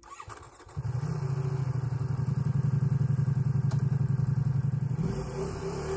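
A heavy motorcycle's engine catches about a second in and then runs at a steady, even idle.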